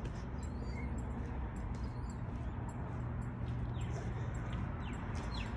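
A steady low hum under outdoor background noise, with a few faint, short, falling chirps about four to five seconds in.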